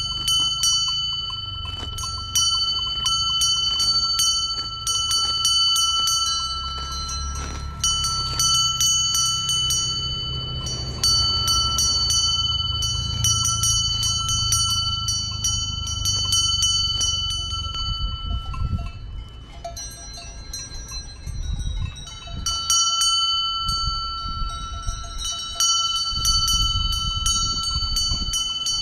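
Cowbell on a grazing cow's collar clanking over and over, its ringing note carrying between strikes. It quiets for a few seconds about two-thirds of the way through, then starts up again over a low rumble.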